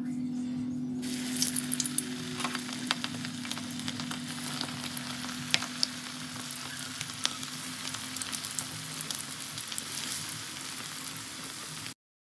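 Floured chicken pieces hit hot oil in a steel wok about a second in. They then deep-fry with a steady sizzle and many scattered sharp pops and crackles, over a steady low hum. The sound cuts off abruptly near the end.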